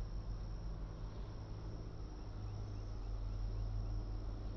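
EMD GP38-2 diesel locomotive's two-stroke V16 running at a distance, a low steady drone that grows louder about halfway through. Insects buzz steadily in the background.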